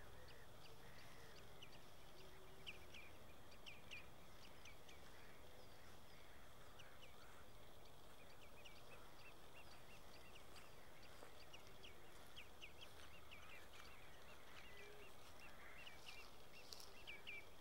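Faint bird calls at dusk: many short, high chirps repeating irregularly, with a few lower, softer calls now and then, over a quiet steady outdoor hiss.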